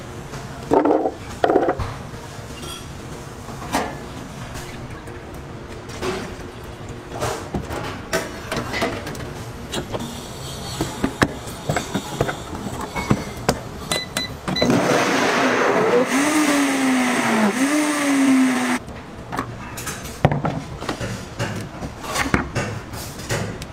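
Cubes of cooked food knocking and clicking into a plastic blender jar, then a countertop blender running for about four seconds from about fifteen seconds in, its motor pitch sagging and recovering as it churns the thick load, and cutting off suddenly.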